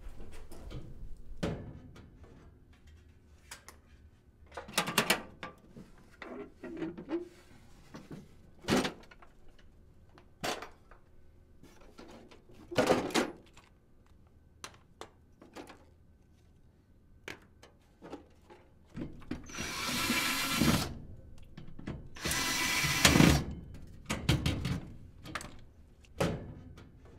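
Hand tools clinking and knocking while a furnace is worked on, then a power drill runs in two bursts of about a second and a half each, about two-thirds of the way through.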